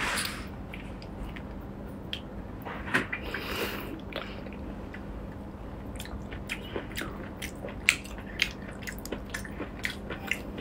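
Close-up eating sounds of a whole garlic-sauce octopus being bitten, sucked and torn apart by hand: wet squishing and slurping at first, then many short wet clicks and smacks in the second half.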